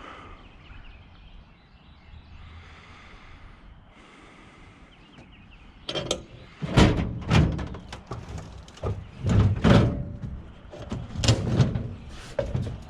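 Scrap metal being handled and moved: a run of heavy thunks and bangs, about ten loud knocks in quick succession, starting about six seconds in.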